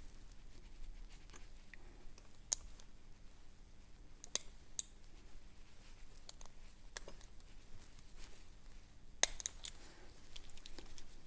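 Lock pick and tension wrench working the pin stack inside a six-pin Corbin Assa Abloy padlock: scattered small metallic clicks and ticks. Four sharper clicks stand out, the last one about nine seconds in.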